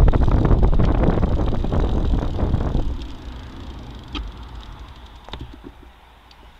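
Wind buffeting the microphone of a bicycle-mounted camera while riding: a loud rumbling rush that drops off sharply about three seconds in. Quieter road and tyre noise remains, with a couple of faint clicks.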